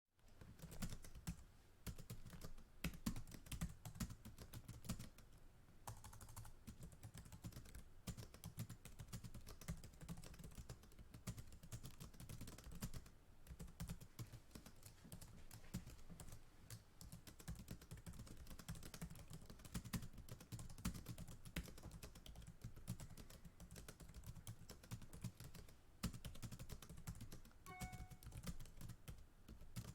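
Fast typing on a computer keyboard, close to the microphone: a rapid, irregular stream of key clicks with brief pauses.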